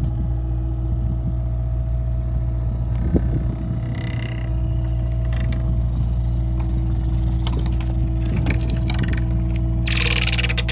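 Compact excavator's diesel engine running steadily while it lifts a giant timber wheel frame upright, with scattered knocks and creaks as the frame shifts and a brief hiss near the end.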